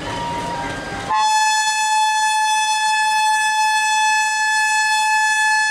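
Train horn sounding one long, steady, single-pitched blast, starting about a second in and held for about five seconds, over general railway-station platform noise.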